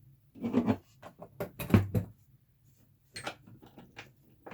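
Sharp knocks and clicks of a metal skateboard tool being handled and fitted against a skateboard truck, a few separate strokes with the loudest cluster about a second and a half in.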